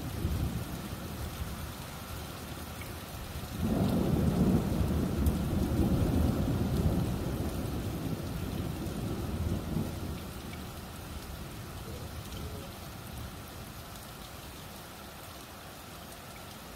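Thunder rumbling over steady rain in a severe thunderstorm. A loud peal breaks in suddenly about three and a half seconds in and rolls away slowly over the next several seconds.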